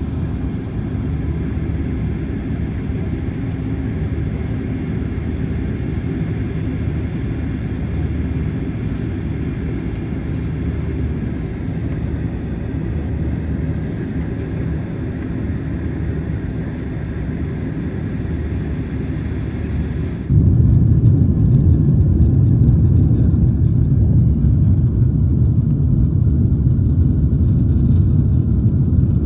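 Cabin noise inside a Boeing 767-400ER airliner: a steady engine drone with air hiss. About twenty seconds in, a sudden cut brings a louder, deeper rumble, as of the takeoff roll.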